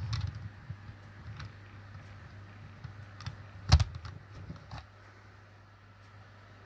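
Handling noise of a die-cast model bus being held and moved on a wooden table: light clicks and rubbing, with one sharp knock a little under four seconds in and a few softer taps after it, over a steady low hum.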